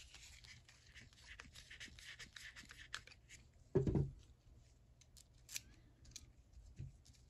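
Screwdriver turning a small screw down into the thin steel cover plate of a vintage ratchet head: fine, scratchy metal-on-metal ticking for about three seconds. A dull thump follows about four seconds in as the screwdriver is laid down, then light clicks of the ratchet being handled and a smaller knock near the end.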